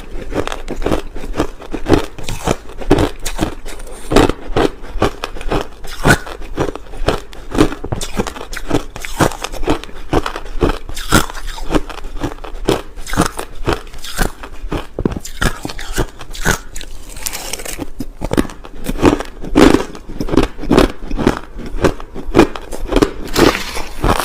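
A person biting and chewing crushed ice, a steady run of loud, sharp crunches several times a second.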